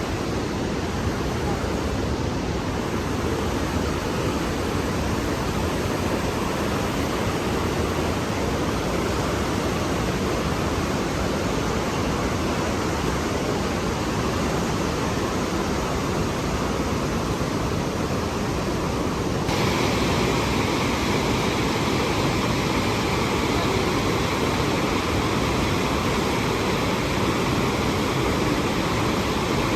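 Rhine Falls waterfall rushing: a steady, loud wash of falling water. About twenty seconds in it turns suddenly a little louder and hissier.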